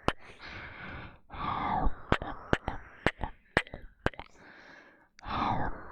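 Close-up kiss sounds into a binaural dummy-head microphone: about half a dozen sharp wet lip-smacks in the middle, set between soft breathy hushes, with a brief quiet gap near the end.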